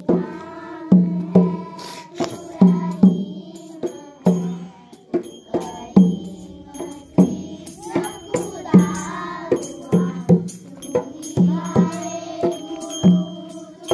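Children singing a prayer song in chorus, with a drum beating the rhythm and small cymbals jingling along.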